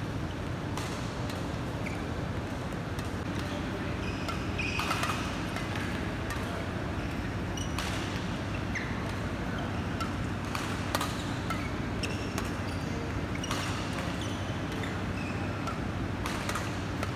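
Sharp knocks of a badminton racket and footwork on a court floor, coming every two to three seconds over a steady low hum, with a few brief squeaks.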